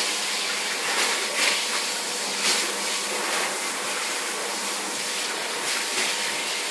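Hydrobath spray nozzle running, a steady hiss of pressurised water spraying onto a Basenji's short coat, over a faint steady hum.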